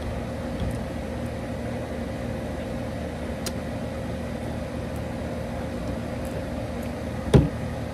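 Steady hum of a running air-conditioning unit, with a constant tone. A single short knock sounds near the end.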